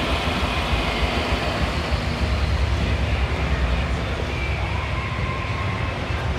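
Mercedes CL600 twin-turbo V12 running at idle while its Active Body Control hydraulic pump cycles the suspension through a rodeo test that bleeds air from the system: a steady low rumble. The pump noise has died down, which the owner takes to mean most of the trapped air must be out.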